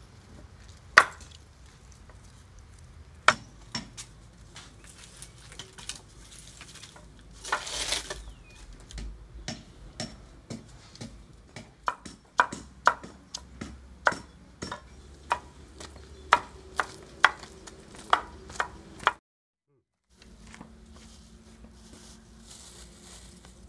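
A large knife chopping raw jackfruit on a wooden board: sharp, irregular knocks, the loudest about a second in, then a quicker run of about a dozen chops in the middle. A short rustle comes between them.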